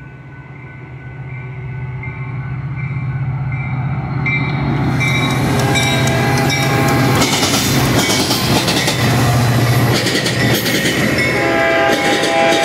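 Metra F40PH diesel locomotive and its bi-level commuter cars passing over a grade crossing. The engine's low drone grows louder as it nears, then wheels clatter and rumble as the train rolls by. A chord of steady horn tones starts near the end.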